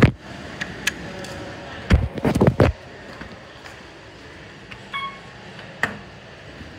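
Several knocks and thumps, the loudest cluster about two seconds in, inside an Otis Series 2 elevator car. About five seconds in comes one short electronic beep, and the floor 1 call button on the car panel is lit red just after it; a click follows.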